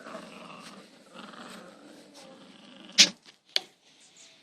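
Five-week-old Labrador puppies playing, with low scuffling sounds. Two sharp knocks come about three seconds in, half a second apart, and are the loudest sounds.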